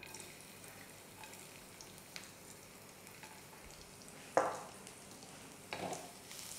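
Chopped garlic frying in hot olive oil in a nonstick pan: a faint, steady sizzle with small crackles, and two louder brief sounds about four and a half and six seconds in.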